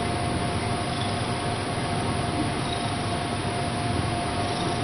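Domestic cat purring steadily close to the microphone, over a constant thin tone and hiss from a low-quality recording.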